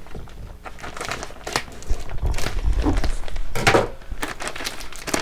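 Plastic packaging crinkling and rustling in irregular bursts as items are handled and pulled from a cardboard box, with a few low thuds.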